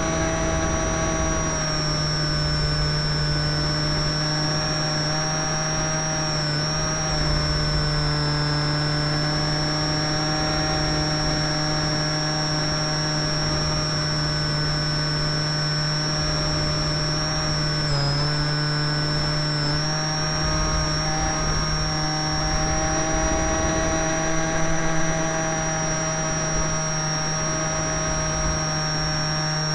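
Motor and propeller of a canard model aeroplane in flight, heard from a camera on board: a steady whine with a high thin tone above it, dipping slightly in pitch briefly about six seconds in and again about eighteen seconds in, over a low wind rumble.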